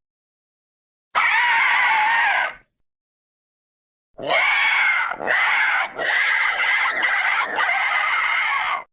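Pteranodon creature sound effect: one harsh screeching call about a second in, then after a pause a run of five screeches strung together with short breaks.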